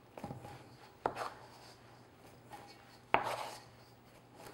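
Metal bench scraper clinking against a stainless steel mixing bowl as it cuts down through wet, shaggy bread dough and lifts it: three sharp knocks with a short ring, the loudest about three seconds in.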